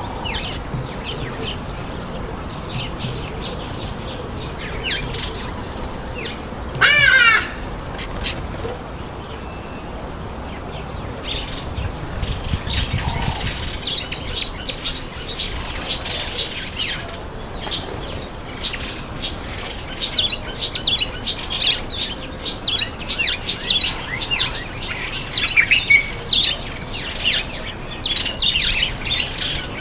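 Garden birds chirping and calling, with one loud warbling call about seven seconds in and many short high chirps coming thick from about halfway on.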